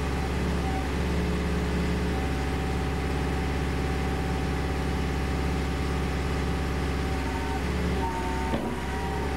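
Engine of a mobile hydraulic machine running steadily at constant speed, a low hum with steady tones; the sound shifts briefly near the end.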